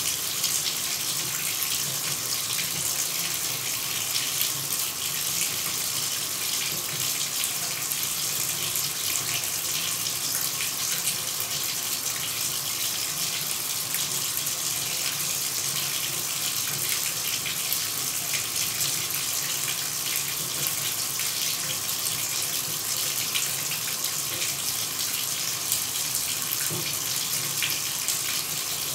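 A shower running: a steady, even hiss of spraying water that does not change.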